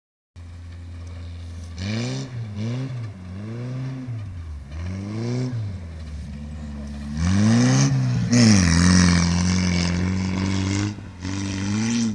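Škoda rally car's engine being driven hard on a dirt track, revs rising and falling over and over as the driver works the throttle and gears. About seven seconds in it revs up loudest, with a rush of tyre and gravel noise, holds a high steady note, drops briefly, then picks up again near the end.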